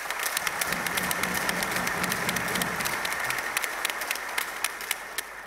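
Large crowd applauding, with many hands clapping at once; the applause dies away near the end.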